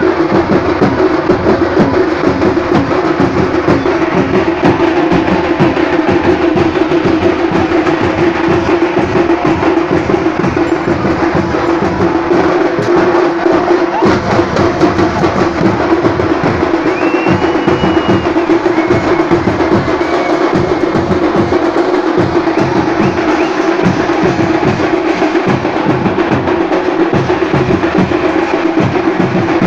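Loud, fast drumming that goes on without a break, with a steady droning tone underneath.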